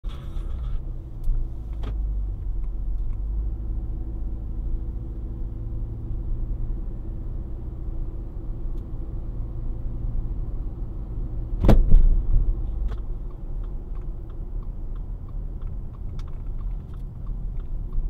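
Car cabin during driving: a steady low road rumble, broken about twelve seconds in by a loud, sharp clunk from the car, the clunking noise it has developed. A lighter knock comes about two seconds in and another just after the loud one, and faint regular ticking runs through the last few seconds.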